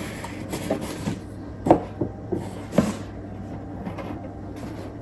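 Handling of a paper-craft gift box: soft rustles and a few light knocks, the two clearest about a second and a half in and a second later, over a low steady hum.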